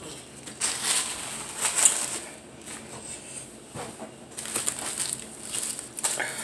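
Paper towel being crumpled and rustled close to the microphone, in two spells of crinkling, the first about half a second in and the second about halfway through.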